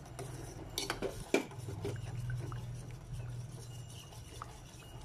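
Steel spoon stirring milk with melted agar (china grass) in a steel saucepan over a low flame, scraping the pot and clinking against its side a few times, loudest about a second and a half in. A low steady hum runs underneath.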